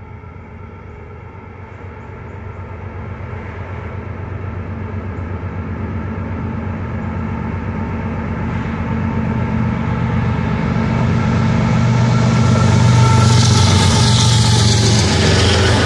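CSX diesel locomotives leading a freight train approach and pass, their engines running with a steady low drone that grows louder throughout. Wheel and rail noise rises sharply as the locomotives go by near the end.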